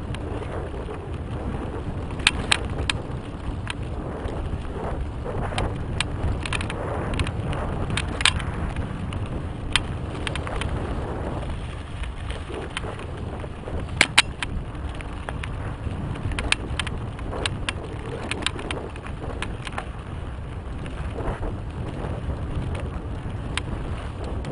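Mountain bike riding on a dirt trail, picked up by a helmet-mounted camera. Steady wind and tyre rumble, with frequent sharp clicks and knocks from the bike rattling over bumps, and a couple of louder knocks standing out.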